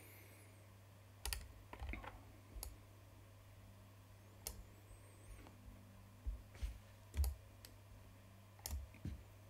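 Faint computer keyboard and mouse clicks: about ten separate presses, spread irregularly, as the 3D view is navigated.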